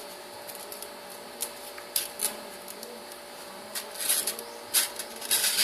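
A small Sanrenmu slip-joint folding knife slicing through phone book paper in short, scratchy strokes. The strokes come more often near the end.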